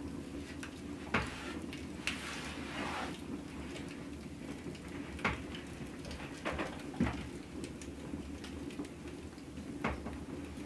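Wood fire crackling in an open hearth, with scattered sharp pops and a few light knocks of dishes being handled.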